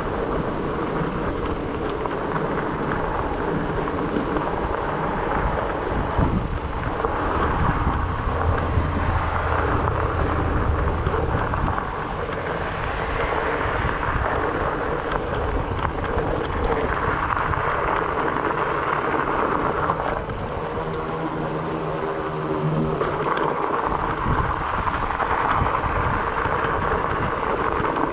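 Fat-bike tyres rolling along a rail-bed trail while riding, with wind rushing over the microphone. The noise swells and eases several times.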